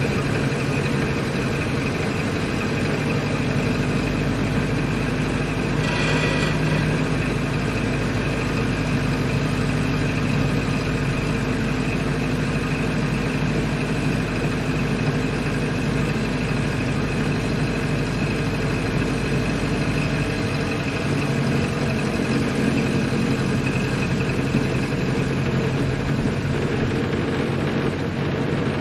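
1928 Ford Model A's four-cylinder flathead engine running steadily as the car is driven, with a brief burst of extra noise about six seconds in.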